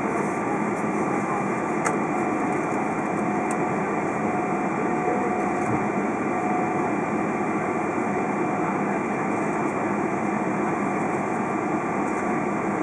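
Steady cabin noise inside a Boeing 777-200 taxiing, its jet engines running at low taxi power under a constant hiss. A faint steady tone sounds through the middle, and there is a single click about two seconds in.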